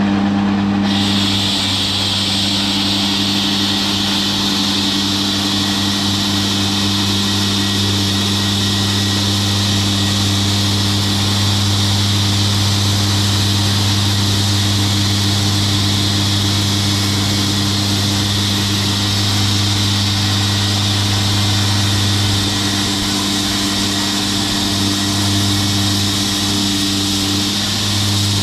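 Large engine running at a steady speed with a steady high hiss over it, at a concrete saw-cutting job.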